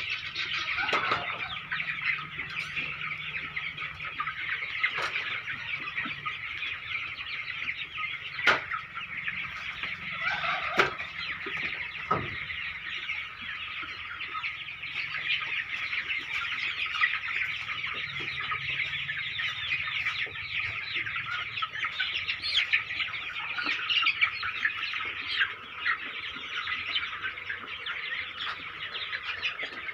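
A large flock of seven-week-old chicks cheeping and peeping all at once, a dense unbroken chorus of high calls. A few sharp clicks stand out, about eight to twelve seconds in.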